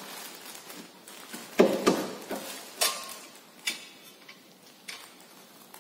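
Irregular metallic clinks and knocks of hand tools and suspension parts being handled while a ball joint bolt is fitted on a car's front suspension. The loudest pair of knocks comes a little under two seconds in, with a few lighter clicks after.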